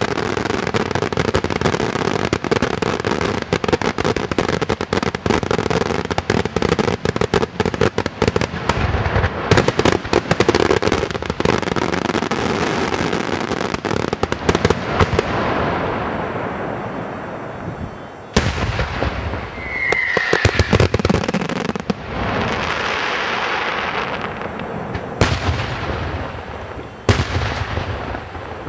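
Aerial fireworks display: a dense, continuous barrage of crackling shell bursts and bangs that thins out after about fifteen seconds into a few separate loud bangs a couple of seconds apart. A short falling whistle sounds just past the middle.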